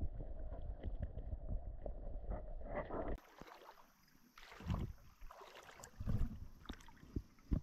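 Muffled rumble and knocks of creek water heard through a submerged camera. After about three seconds it cuts to faint shallow creek water above the surface, with a few small splashes as a hand moves in the water.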